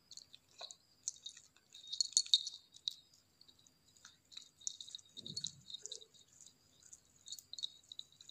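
A kitten chewing chicken liver while the small jingle bells on its collar tinkle and click with each movement of its head, in quick irregular jingles that are loudest about two seconds in.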